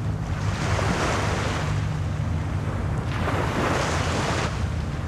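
Sea surf and wind: a steady rushing noise that swells twice as waves wash in, over a low rumble.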